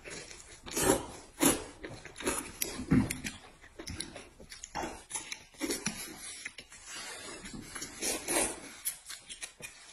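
Close-up eating sounds: people slurping and chewing noodles in irregular short bursts, a few each second.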